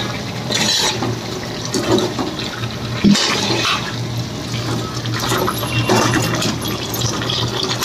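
Chicken gravy sizzling steadily in an aluminium kadai over a gas flame, with a steel spoon stirring through it and scraping the pan a few times.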